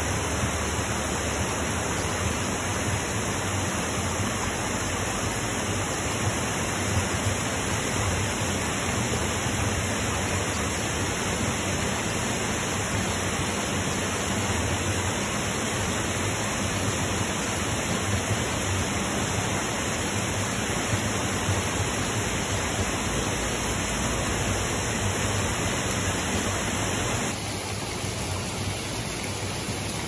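Steady rush of a mountain stream's water spilling over stone ledges and small falls. It drops a little in level near the end.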